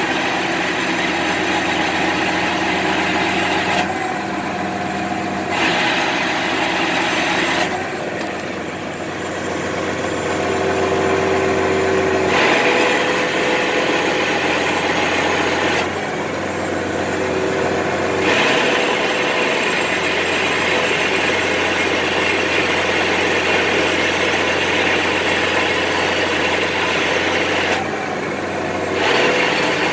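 2018 Versatile 265 tractor's diesel engine running steadily, with its hydraulic system pushing oil through an SCV remote valve that has been hosed to itself to flush it, because the valve is not seating and is bypassing oil.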